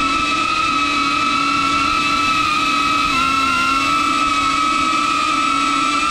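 DJI Avata FPV drone's ducted propellers and motors whining in flight, heard close up: a steady multi-pitched whine with slight dips in pitch as the throttle shifts.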